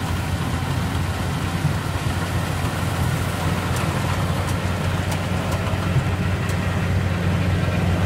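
Yanmar YH850 combine harvester's diesel engine and threshing machinery running steadily while it cuts rice, growing a little louder as it comes closer.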